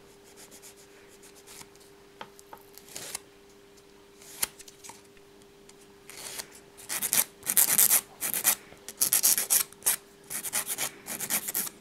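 Nail file rasping against the edges of cut false nail tips, shaping their corners. A few light ticks come first, then about six seconds in quick back-and-forth strokes start, about two a second.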